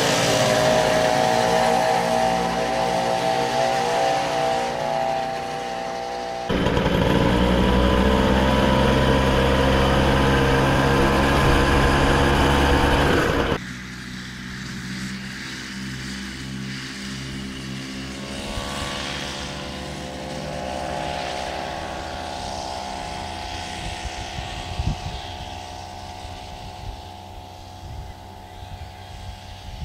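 Small two-stroke moped engines running: one moped pulls away and fades over the first few seconds, then an abrupt louder, closer stretch of engine running with a deep rumble underneath. After a sudden drop, a distant moped drone grows slowly louder and rises in pitch as the mopeds approach.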